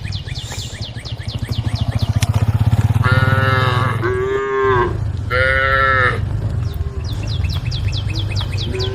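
Cattle mooing: three calls in quick succession around the middle, each falling in pitch at its end, over a steady low rumble, with a fast, regular high ticking throughout.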